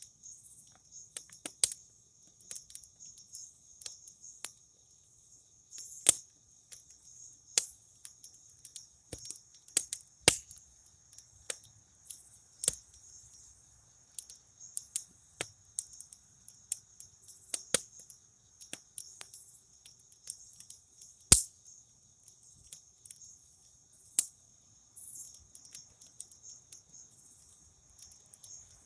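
Campfire crackling with irregular sharp pops and a handful of louder snaps, over crickets chirping in a steady high trill.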